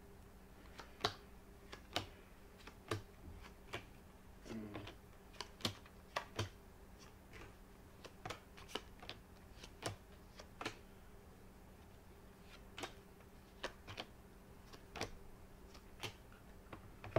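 A string of sharp, irregular clicks and taps, about one or two a second with a short pause about two-thirds through: tarot cards being drawn and laid down one by one.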